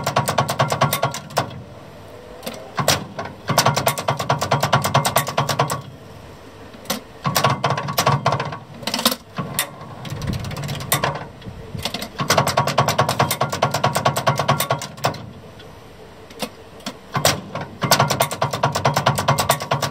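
Hitachi camshaft contactor controller of a Martin & King electric train stepping up through its power notches, switching resistances out of the traction-motor circuit to accelerate. It gives about five bursts of rapid mechanical clatter, each a couple of seconds long, as the camshaft turns and the contacts switch, with single sharp clicks between the bursts.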